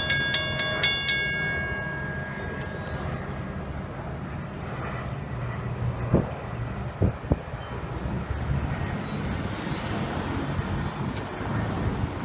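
Railroad crossing warning bell ringing in quick even strokes, about three to four a second, then stopping about a second in as the gate arms begin to rise. A sharp knock comes about six seconds in and a double knock about a second later, over a low rumble that continues throughout.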